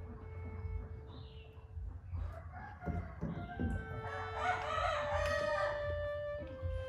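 A rooster crowing once, a harsh drawn-out call of about two seconds a little past the middle, over background music with held notes.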